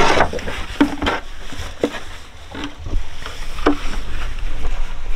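Goose floater decoys clunking against each other and the boat's hull as they are lifted out of a jon boat: a clatter at the start, then irregular single knocks.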